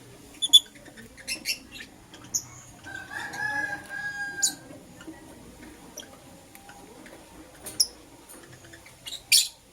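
Pet lovebirds giving scattered short, shrill chirps, the loudest about half a second in and near the end. A lower, drawn-out call runs from about three seconds in for about a second and a half.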